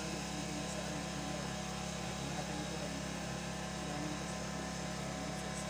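Steady engine-like drone with a fixed low hum, unchanging in level, under a faint low murmur of a voice leading a quiet prayer.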